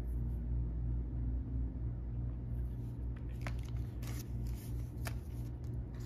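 Paper banknotes being handled and counted by hand: a few short, crisp rustles and flicks of the bills, mostly in the second half, over a steady low hum.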